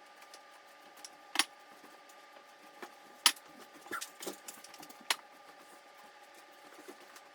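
A few scattered light clicks and knocks from pantry containers and lids being handled, over a faint steady hum.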